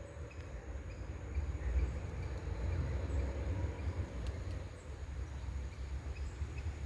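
Outdoor ambience: a steady, fluctuating low rumble with a faint hiss, and a single faint click about four seconds in.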